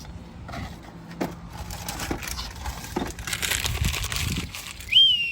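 Crinkling and rustling of new brake pad packaging with small clicks, as the other pad is taken out. Near the end, a short, wavering, high whistle-like tone.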